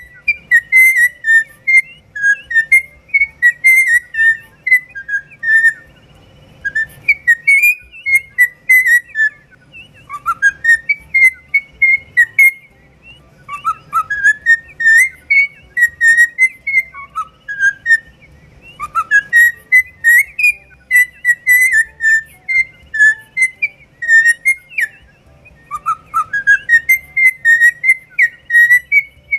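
Pet cockatiel whistling its song: repeated warbling phrases of quick whistled notes, many opening with a rising glide, with short pauses between phrases.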